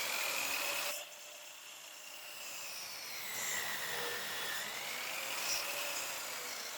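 Electric compound miter saw running as its blade is pushed down through a wooden crown molding, a motor whine that wavers in pitch; it is loudest for about the first second, then drops somewhat.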